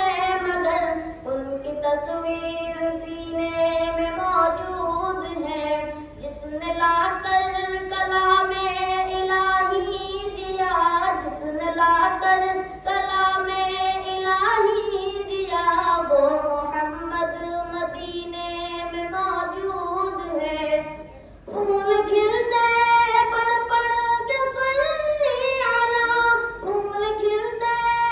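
A boy singing a naat, an Urdu devotional poem in praise of the Prophet, solo in a long, slow melody with held notes, pausing briefly for breath about three-quarters of the way through.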